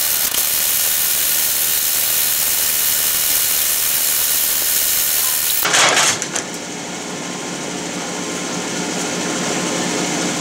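Metal lathe running: a steady high hiss for about six seconds, a brief loud burst, then a quieter steady machine hum.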